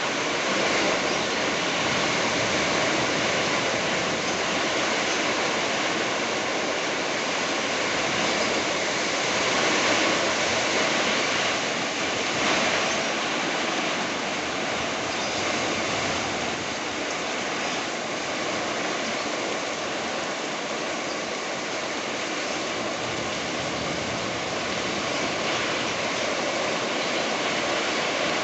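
Heavy rain pouring down in strong wind: a steady, dense rushing hiss with no let-up.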